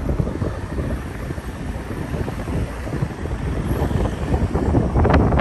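Road and wind noise of a moving car heard from inside it: a steady low rumble with wind buffeting on the microphone. A few short knocks about five seconds in.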